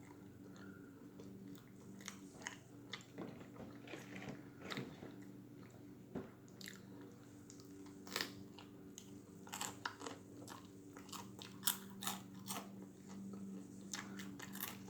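Close-up chewing of a crispy Cheetos-crusted chicken sandwich: irregular crunches and mouth smacking, coming thicker in the second half.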